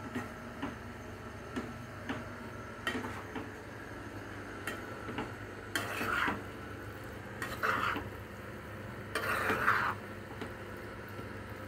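Steel spatula stirring mushrooms and masala in a nonstick kadai: light taps against the pan, then three longer scrapes in the second half, the last the loudest, over a low sizzle of frying.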